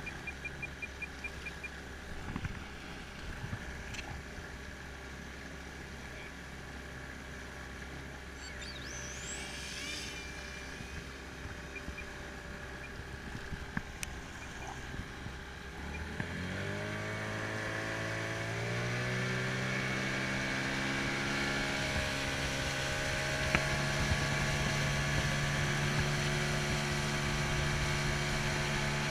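Small boat's motor running steadily over water and wind noise, then speeding up about sixteen seconds in: its pitch rises over a few seconds and holds steady, louder, at the higher speed. A brief high rising whine comes about nine seconds in.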